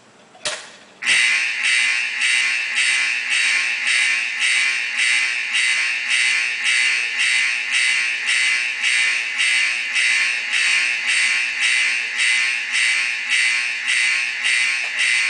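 Standard Electric Time fire alarm system sounding, a loud, even pulsing signal about twice a second. It starts about a second in, just after two sharp clicks.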